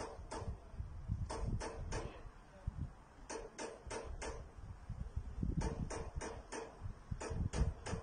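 A bird pecking at the metal skin of a rocket monument: sharp ringing taps in runs of three to five, about four a second, with short pauses between runs. Low wind rumble on the microphone underneath.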